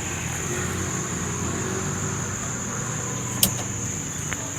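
Steady low engine hum from a vehicle running, under a continuous high drone of crickets, with one sharp click about three and a half seconds in.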